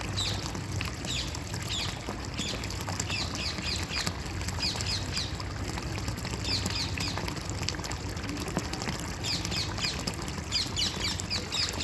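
Running water with small birds chirping over it, in quick runs of three or four short falling notes that come back several times.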